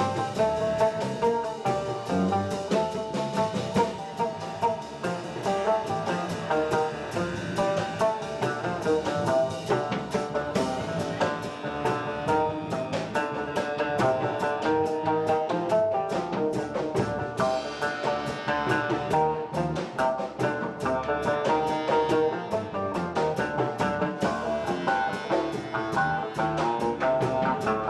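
Live band playing: oud with electric bass and drum kit, in a busy jazz-style groove with a steady drum pulse.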